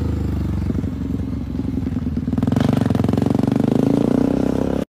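Small engine running under way, its rapid firing pulses growing louder about two and a half seconds in, then cut off abruptly.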